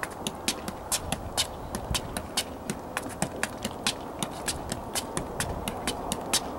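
A soccer ball being juggled: a steady run of light taps as the ball bounces off the foot and knee again and again without touching the ground.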